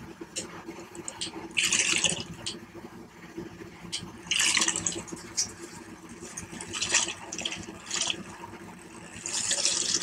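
Electric makeup brush cleaner spinning a brush in soapy water in its glass bowl: a steady motor hum with bursts of water swishing against the bowl every two to three seconds.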